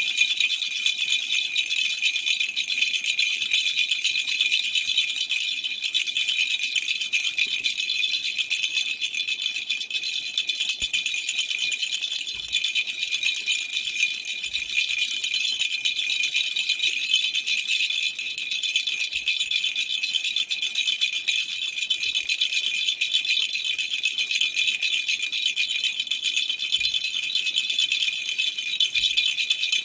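Baby's rattle toy shaken without pause, a steady, bright, high-pitched rattling.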